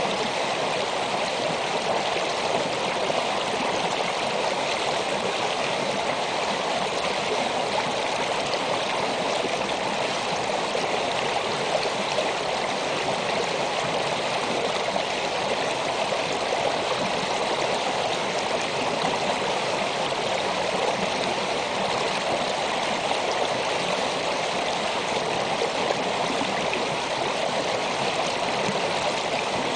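Shallow winter creek running over and around rocks during the ice melt: a steady rushing, babbling flow of water that does not change.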